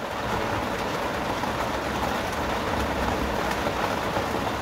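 Heavy rain drumming steadily on a camper van's roof and windscreen, heard from inside the van as an even rushing hiss.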